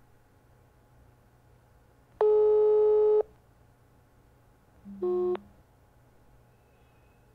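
Phone ringback tone on an outgoing call: one steady ring about a second long, then about two seconds later a shorter, lower beep that steps up in pitch.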